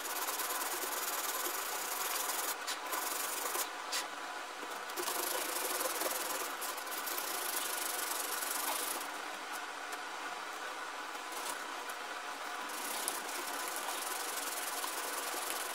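Sandpaper backed by a thin metal plate, rubbed by hand against the wood inside a split in a wooden painting easel: a continuous scratchy hiss. The surfaces of the crack are being sanded to prepare them for gluing.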